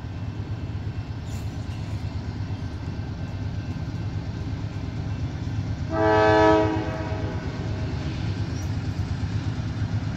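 Diesel locomotive of a train rumbling steadily, with one short blast of its air horn about six seconds in.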